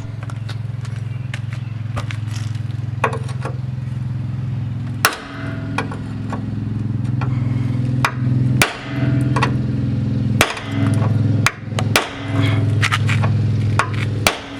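Sledgehammer blows on a punch against a drilled-out rivet head in a 1997 Ford F-350's steel frame, knocking the head off. About ten sharp strikes come at irregular spacing over a steady low hum.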